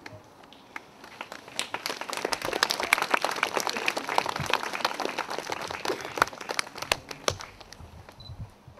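A crowd applauding, a dense patter of many hands clapping that builds about a second in and thins out near the end.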